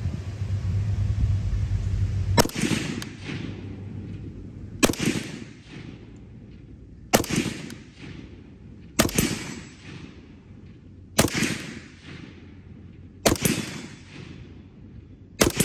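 Johnson light machine gun firing .30-06 single shots in semi-automatic: seven shots about two seconds apart, each trailing off in an echo. The first shot comes about two and a half seconds in, after a steady low hum.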